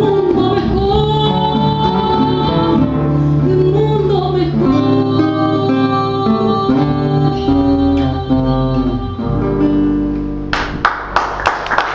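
A woman singing over several acoustic guitars, nylon-string classical guitars among them, the song closing on held notes. Applause breaks out suddenly about ten and a half seconds in.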